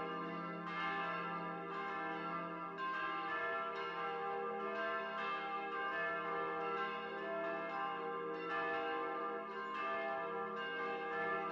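Church bells ringing, several bells struck in turn about a second apart, each strike ringing on and overlapping the next: a peal announcing the Resurrection.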